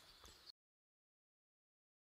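Near silence: faint room hiss that cuts off abruptly about half a second in, followed by dead digital silence.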